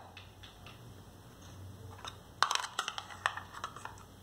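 A white spoon scraping and clicking against the inside of a steel bowl while scooping up cream cheese filling. It comes as a quick cluster of clicks and scrapes starting about halfway through.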